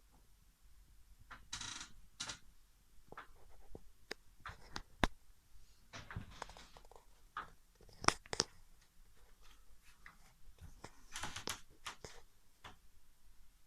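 Faint, scattered clicks and knocks with a few short rustles: small objects being handled.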